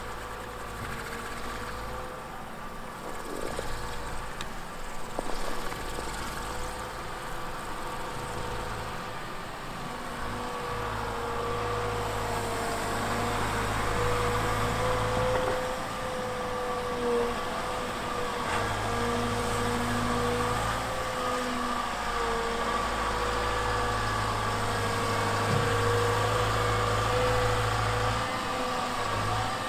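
Volvo EWR150E rail wheel excavator's diesel engine running steadily with a whine that wavers slightly in pitch, as the rotary snow broom is worked on its tiltrotator.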